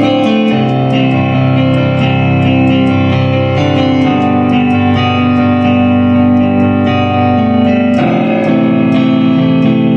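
Guitar played solo, a run of picked notes ringing over held lower notes, with a fresh chord struck about eight seconds in.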